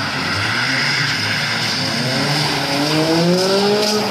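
Mitsubishi Lancer X engine revving hard while the car slides through a drift on snow, its pitch climbing steadily over the second half as the car comes close.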